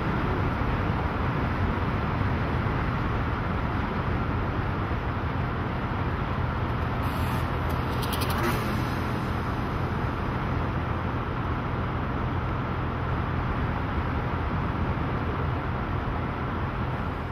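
Steady road and engine noise inside a moving Honda car's cabin, with a low engine hum under the tyre and wind noise. A few faint clicks come about seven to eight seconds in.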